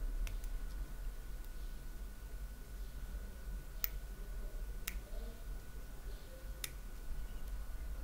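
Lock pick working the pin stack of a Fratelli Facchinetti (FF) half euro cylinder lock under tension: a few sharp, small metallic clicks, about four, spaced irregularly.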